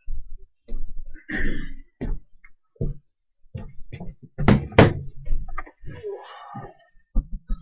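A series of knocks and thumps as objects are handled and set down on a table, with the loudest two sharp knocks close together about halfway through.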